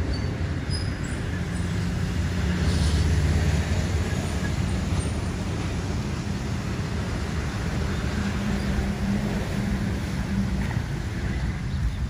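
Steady low rumble of road traffic, with a few faint high bird chirps in the first second or so.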